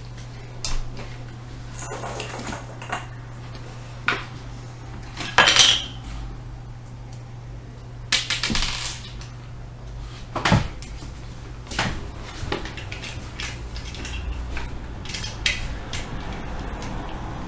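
Plastic Lego pieces clicking, knocking and clattering as a Lego model and its minifigures are handled, with scattered knocks, the loudest about five and a half seconds in. A steady low hum runs underneath.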